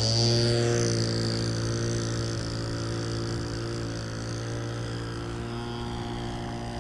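Radio-controlled model Cessna 152's motor drone as it flies, a steady hum with a high whine over it, fading slowly as the plane draws away.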